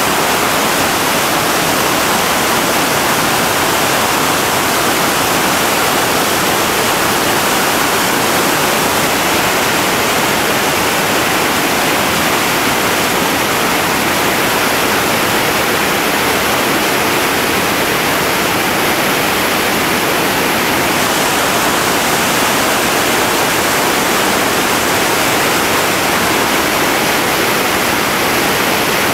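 Whitewater rapids rushing: a loud, steady roar of turbulent river water pouring over rocks and through a hole.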